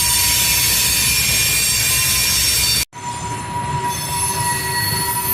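Freight train cars rolling past on the rails, with steel wheels squealing in several steady high tones over the rumble. About three seconds in the sound cuts out abruptly, then resumes a little quieter with the squeal still going.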